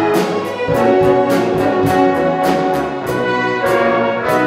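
Youth orchestra playing, brass prominent over strings, with regular accented notes a little over two a second.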